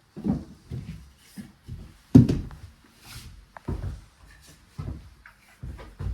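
Irregular wooden knocks and thumps, about a dozen, from a floorboard and tools being shifted and set down on a wooden floor; the loudest comes about two seconds in.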